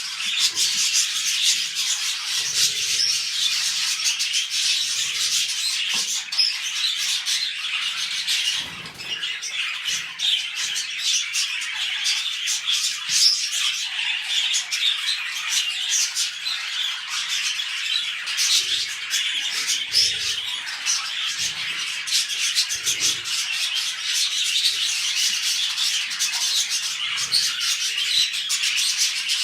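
Budgerigars chattering and warbling without pause: a dense, fast stream of small chirps and clicks.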